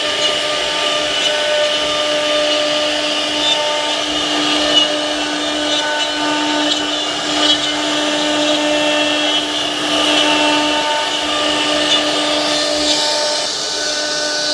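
CNC router spindle running steadily with a high whine while its bit carves into wood, with a steady hiss of cutting; the tone eases slightly near the end.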